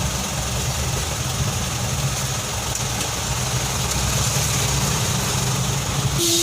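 Heavy diesel engine idling steadily, with a sudden hiss of air starting near the very end.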